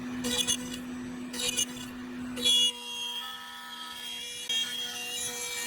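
CNC router cutting wood: the spindle runs with a steady tone while the bit chews through the board in short noisy passes during the first couple of seconds, then the cutting eases and several steady motor tones switch on and off as the machine moves.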